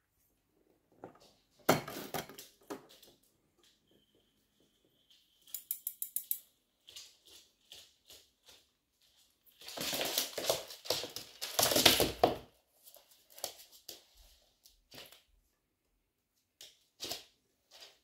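Handling of a plastic animal box with a grid lid: sharp clicks and rattles, a quick run of clicks in the middle, then a stretch of loud rustling and scraping, followed by a few light taps near the end.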